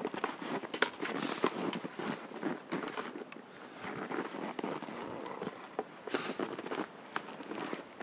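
Footsteps crunching in deep snow, a run of irregular crunches and crackles.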